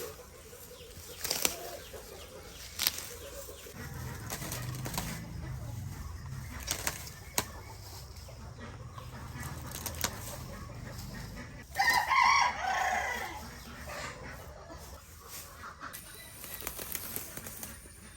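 A rooster crowing once, about twelve seconds in, over a quiet outdoor background with a few sharp clicks.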